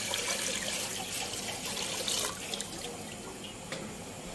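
Water pouring into a metal cooking pot to fill it for boiling rice. The pour eases off about halfway through, leaving the water trickling and a few drips falling.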